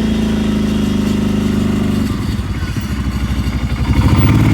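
A small gasoline engine running steadily, then settling into a slower, pulsing beat about two seconds in, which grows louder near the end.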